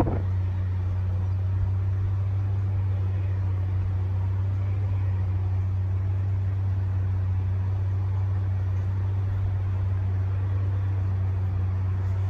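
A steady low engine hum that holds an even level without rising or falling.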